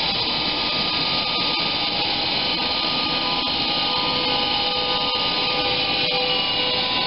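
DB Class 101 electric locomotive moving slowly past at the head of a passenger train. Its traction equipment gives a steady, loud whine of several high tones over a rumbling noise.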